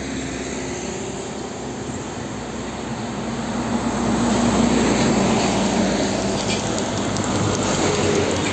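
Heavy diesel truck traffic passing close: a Hino FM 260 TH tractor-trailer's engine and tyres grow louder as it approaches and passes about four to five seconds in, with more trucks running up behind it.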